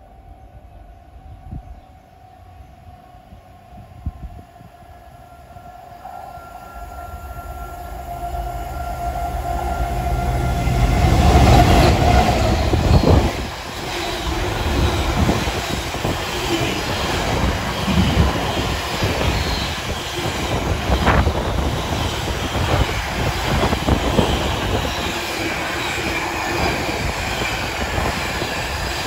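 Container freight train approaching and running through at speed, its sound building with a steady tone as it nears and loudest as the front of the train passes about twelve seconds in. After that comes a long stream of container wagons rattling past, with many quick clicks from the wheels.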